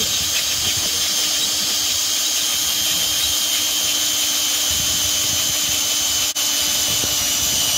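Power drill with a Gekko (月光) high-speed-steel twist bit boring steadily through a 6 mm stainless steel (304) plate: a continuous motor whine with a steady high tone over the grinding of the cut, dipping briefly once about six seconds in.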